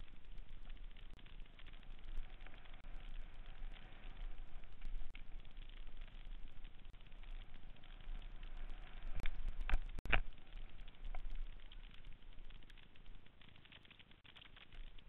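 Mountain bike riding down a dirt singletrack: a steady crackling hiss of knobby tyres on dirt with the bike rattling, and a cluster of sharper clatters about nine to ten seconds in.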